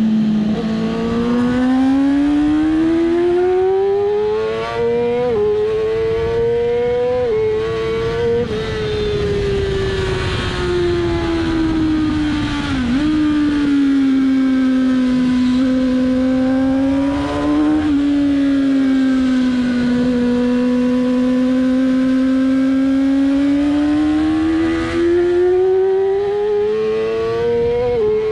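2007 Yamaha R6's inline-four engine heard from onboard at racing speed, its pitch climbing under acceleration and sinking off the throttle into corners, with short sudden drops in pitch at the upshifts, the last one near the end.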